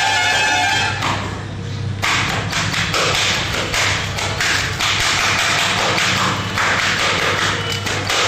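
Shredded cabbage and vegetables being mixed and squeezed by hand in a metal bowl: irregular crunching rustles and soft taps, starting about two seconds in after music fades out.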